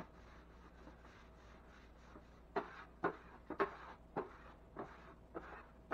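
Drywall taping knife scraping in short strokes over setting quickset hot mud along the metal corner bead of a ceiling box, about two strokes a second, starting a couple of seconds in.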